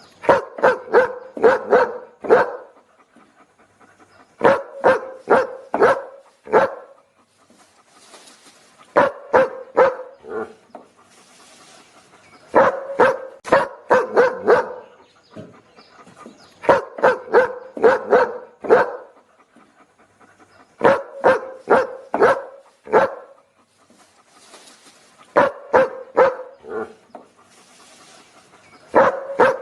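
A dog barking in repeated bursts of about half a dozen quick barks, one burst roughly every four seconds, with short pauses between.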